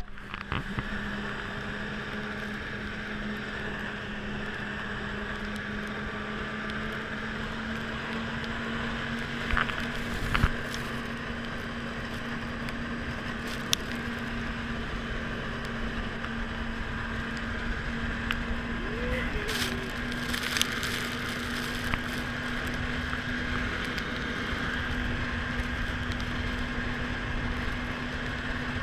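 Yamaha snowmobile engine running at a steady cruise under the rider, with a constant drone and the rush of the track and wind over the machine. A few short clicks and knocks come about a third of the way in and again around two thirds.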